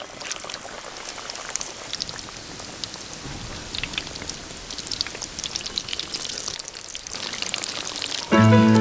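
Breadcrumb-coated fish cutlets deep-frying in hot oil: a steady sizzle made of many small crackles and pops. Background music comes in loudly near the end.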